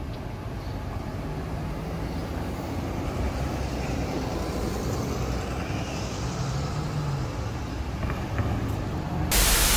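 City street traffic: a steady low rumble of cars and engines at an intersection. Near the end it gives way to a burst of TV-static hiss.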